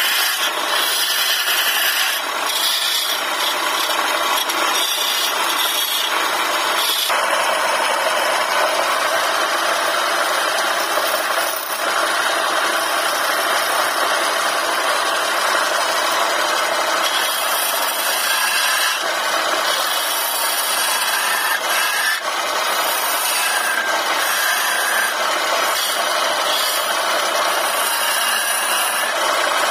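Hand-held turning chisel cutting into a wooden spindle spinning on a lathe: a steady, rough scraping hiss of shavings coming off, dipping only briefly a couple of times.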